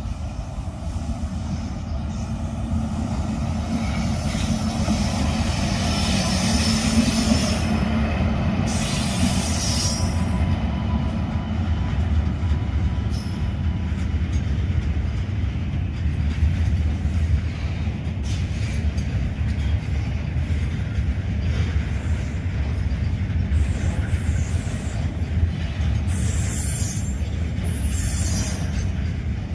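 Train wheels running over the rails with a steady low rumble and rapid clatter. Bursts of high squealing come from the wheels a few seconds in and again near the end.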